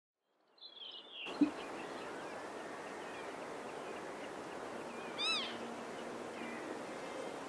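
Whooper swan giving one short call that rises and falls, about five seconds in, over a steady background hiss, with fainter calls further off. A short low thump comes about a second and a half in.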